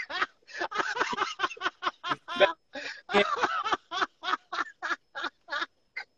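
Laughter breaking into a fast run of short bursts, about three or four a second, getting shorter and fainter near the end.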